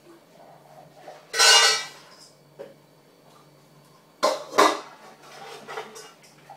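Metal dog food bowl clattering with a ringing sound as it is handled, then knocking twice on the tile floor about four seconds in as it is set down.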